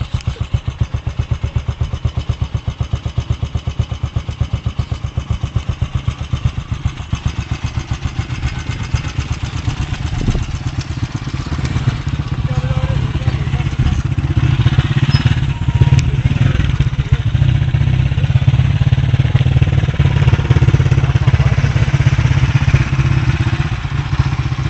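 A small engine running with a fast, even pulse, getting louder about halfway through.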